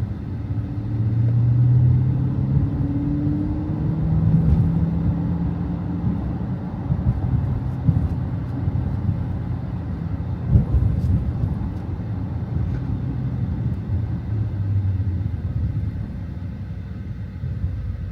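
Dodge Challenger Scat Pack's 392 (6.4-litre) HEMI V8 running while the car is driven, with road noise. The engine note rises a little in the first few seconds and then settles. There is a single knock about ten seconds in.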